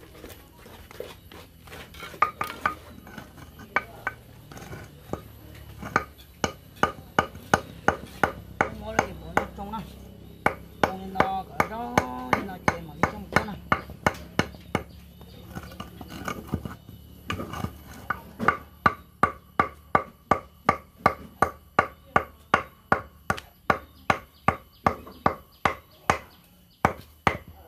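Repeated sharp tapping on a hollow concrete block, about two taps a second, from a mason's hand tool knocking the block down level into its bed of mortar. In the later taps a faint metallic ring can be heard.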